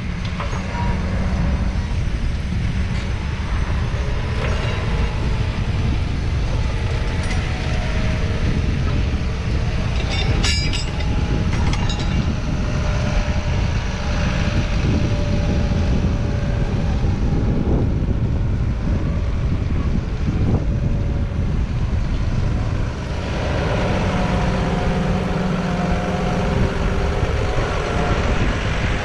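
John Deere 6215R tractor's 6.8-litre six-cylinder diesel engine running steadily under load, pulling a Kuhn six-furrow reversible plough. A short metallic clatter comes about ten seconds in, and the engine note turns clearer and more humming about 23 seconds in.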